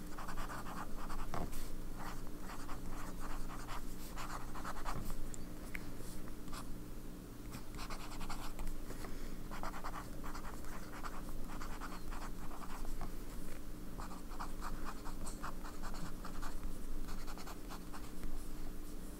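Fountain pen nib (Sailor 1911S, zoom nib) scratching across Clairefontaine paper as words are handwritten, in short stop-start runs of strokes with brief pauses between words. The writer feels the pen is writing somewhat dry.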